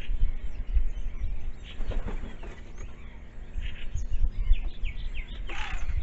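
Small birds chirping in the background over a steady low rumble of wind on the trail camera's microphone, with a short louder rustling rush near the end.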